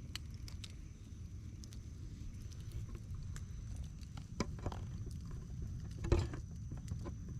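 Wood campfire crackling: scattered sharp pops and snaps, the loudest about six seconds in, over a low steady rumble.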